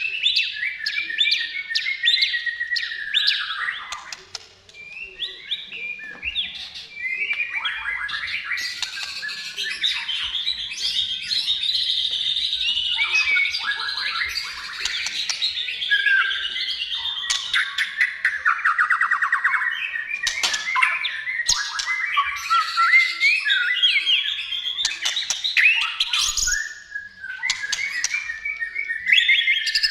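White-rumped shama singing a long, varied song of whistled and chattering phrases, with a fast rattling trill about two-thirds of the way through and brief pauses near the start and near the end.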